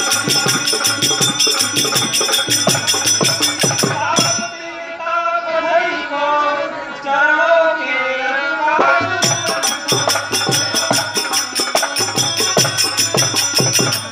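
Live devotional stage music: a drum beating a steady rhythm with jingling percussion over it. About four seconds in, the percussion stops for a few seconds while a voice sings a drawn-out, wavering line. The drum and jingles then return.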